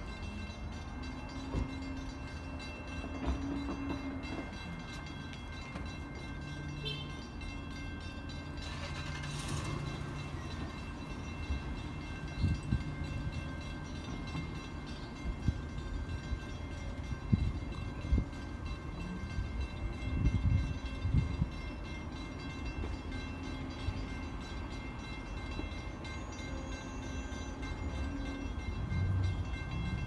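Distant diesel freight locomotive horn, sounded in several long blasts as the train approaches, over a steady low rumble.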